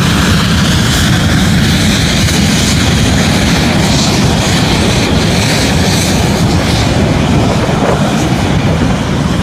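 Engines of a Lightning aircraft running loud and steady, with a heavy low rumble.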